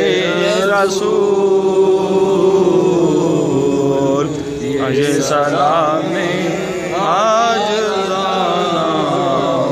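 A devotional naat sung in a chanting style: a voice drawing out long, wavering melodic lines over a steady held drone, without instruments.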